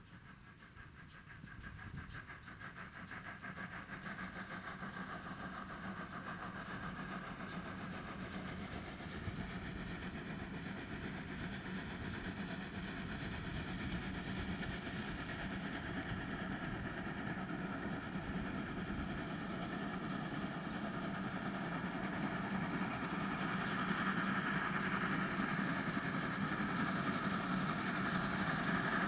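Steam locomotive pulling a train, heard from a distance as it approaches, its running noise growing steadily louder.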